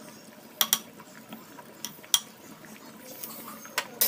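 A spoon clinking against the cooking pot several times in sharp, separate clicks, over the faint sound of rice boiling in water.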